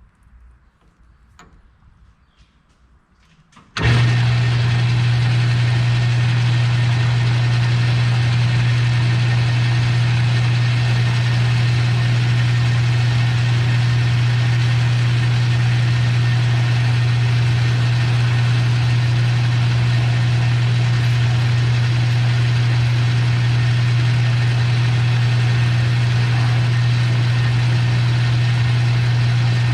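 A few faint clicks, then an electric shop machine motor switches on about four seconds in and runs steadily with a strong low hum and a wide whirring noise.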